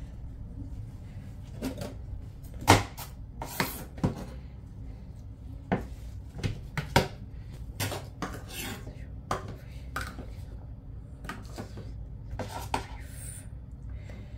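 Kitchen knife slicing basil leaves on a bamboo cutting board: irregular sharp knocks of the blade on the board, the loudest about three seconds in. Near the end the cut leaves are scooped up off the board by hand.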